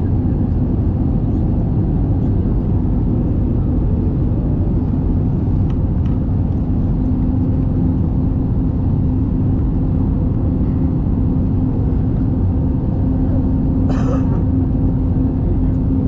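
Cabin noise of an Airbus A320neo on approach with flaps extended: a steady, loud rumble of airflow and its CFM LEAP-1A engines, with a steady hum. A brief higher-pitched sound about fourteen seconds in.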